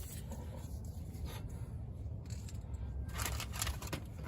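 Short scrapes and clicks of brake parts being handled and fitted by hand, loudest in a cluster about three seconds in, over a low steady hum.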